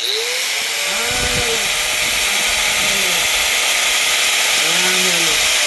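Angle grinder switched on, spinning up at once and then running steadily at full speed with a loud, even high-pitched whine.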